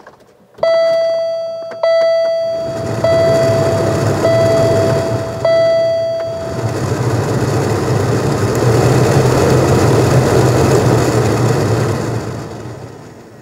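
Newly installed heater and A/C blower motor in a 1999 Chevy Venture being tested: it spins up with a steady rush of air and a low hum, then winds down near the end. A dashboard warning chime dings five times, about a second apart, as it starts.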